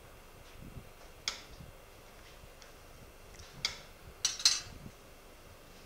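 A few sharp, light clicks, about four in all, the loudest pair near the end: metal surgical instruments being handled during cataract surgery.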